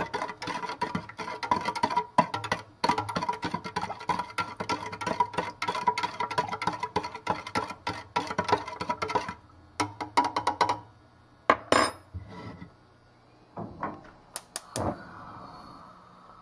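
A spoon stirring sugar into water in a pot, clinking and scraping against the sides rapidly, then slowing to a few scattered taps about nine seconds in.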